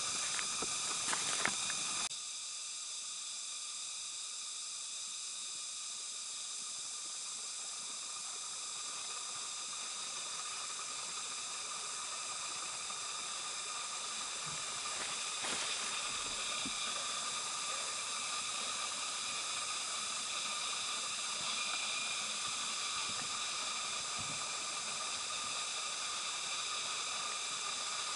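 Steady high-pitched hiss of a forest insect chorus, holding several steady high tones. It is joined by short clicks and rustles for the first two seconds, which stop abruptly.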